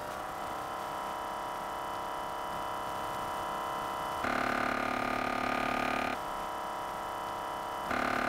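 Massage gun motors running for comparison: a steady hum with several level tones from a new brushless massage gun. It is broken twice, about four seconds in for two seconds and again near the end, by a louder buzz from an old budget massage gun.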